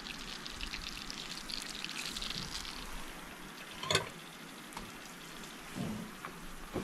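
A floured smallmouth bass fillet sizzling and crackling in hot oil in a frying pan, strongest for the first three seconds. A sharp clink about four seconds in.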